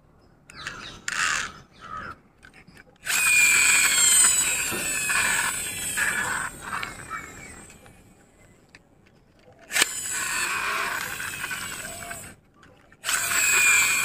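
Plastic toy tractor's gear motor whirring as its wheels are run hard by hand, three times, with the first run falling in pitch as it winds down. There are a few light handling clicks before the first run.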